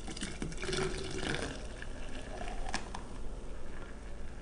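Freshly made pecan milk being poured into a container. The pitch of the filling rises over the first few seconds and ends in a sharp tap about three seconds in.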